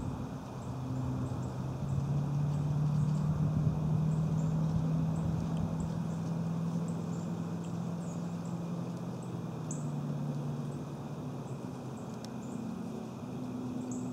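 A steady low engine-like hum that swells a couple of seconds in and slowly eases off, with faint, short high chirps repeating throughout.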